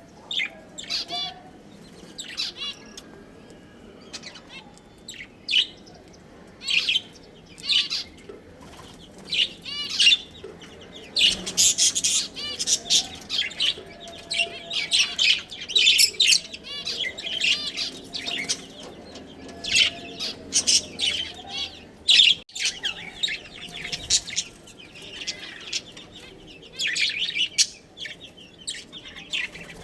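Budgerigars chirping and warbling: strings of quick high chirps, scattered at first, then busy through the middle and again near the end.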